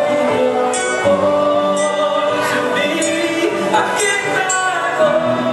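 Live band music with a singer on the microphone, drums and electric guitar, and cymbal crashes cutting through several times.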